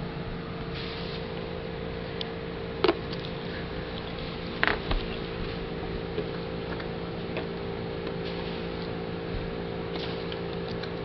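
Dog nosing a hard plastic treat-dispensing bone toy with kibble inside, giving a few sharp clicks and knocks of plastic and kibble, two louder ones about three and five seconds in, over a steady low hum.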